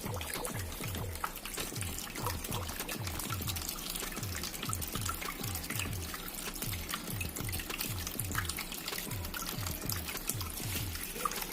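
Water trickling and splashing down a tabletop terracotta-pot waterfall fountain, over background music with a steady low beat.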